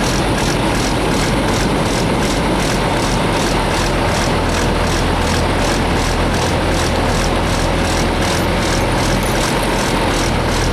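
Diesel engine of a vintage excavator running steadily at idle, with a faint regular pulsing.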